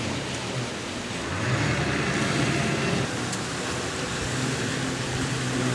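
Jet ski and speedboat engines running over a steady rush of noise, the engine hum swelling about a second and a half in.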